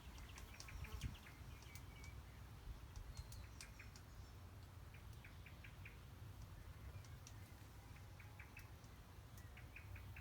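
Small birds chirping faintly in quick runs of short high notes every few seconds, with scattered sharp clicks and a steady low rumble underneath.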